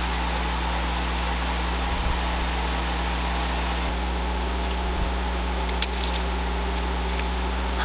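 Steady hum of an electric motor running in a workshop, such as a dust collector or shop fan, unchanging throughout. A few light clicks about six and seven seconds in.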